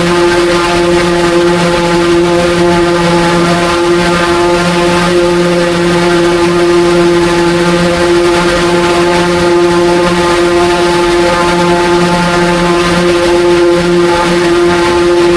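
Case IH 8920 Magnum tractor running at a steady engine speed while chopping corn silage. A loud, unchanging drone with a strong constant hum.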